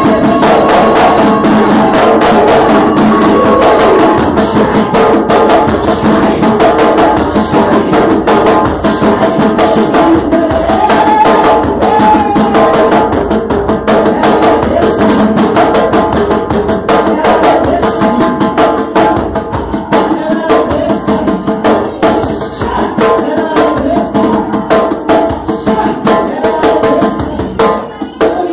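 Loud music with drums and percussion keeping a steady beat over pitched instrumental or vocal parts.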